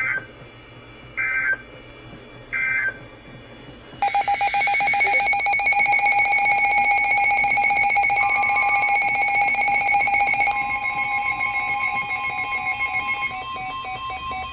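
Emergency Alert System signalling: three short screeching digital data bursts, the end-of-message code closing the previous warning, then about four seconds in a loud, steady two-tone alert tone. About ten seconds in it changes to a different steady tone.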